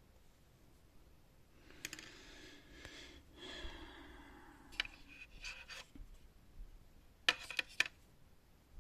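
A long breathy sigh, then a few small sharp clicks and taps from hard parts being handled, with a quick cluster of them near the end.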